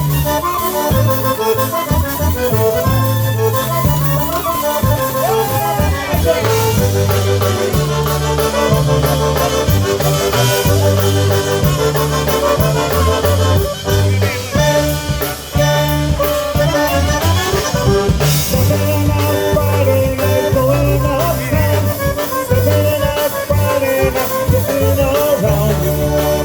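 Live polka band playing an instrumental passage led by accordion over a steady bass-and-drum beat.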